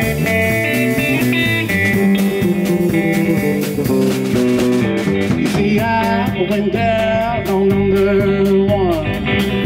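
Live blues trio playing: electric guitar over electric bass and a drum kit keeping a steady beat. About halfway through, a melody that bends up and down in pitch comes to the front.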